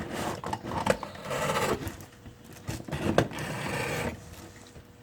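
Barbecue packaging being cut with a knife and pulled apart: irregular rasping, scraping strokes in spells of about a second, with a few sharp clicks.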